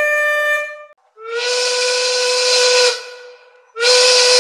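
A canned air horn blast cuts off about a second in. Then a steam locomotive whistle blows twice, each a steady single-pitched tone over heavy steam hiss, the second blast starting near the end.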